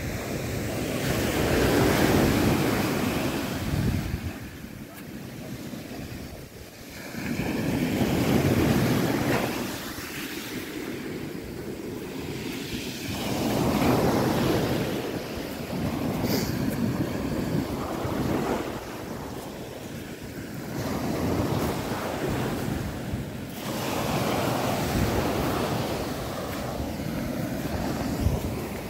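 Sea waves breaking on the shore, the surf swelling and fading about every six seconds, with wind buffeting the microphone.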